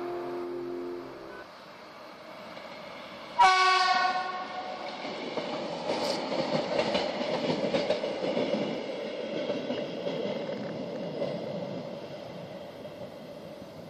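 Diesel railbus on the metre-gauge Harz line sounds one short horn blast about three seconds in. It then passes close with its engine running and wheels clicking over the rail joints, fading steadily as it pulls away toward the station.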